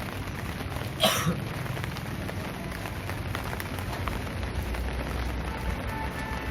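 Steady rain falling, with a low rumble underneath and one short, sharp burst about a second in.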